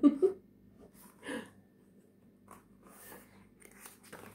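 A short vocal sound right at the start, then faint, brief rustles and scuffs as a hardback picture book is handled and its pages turned, with soft breathing.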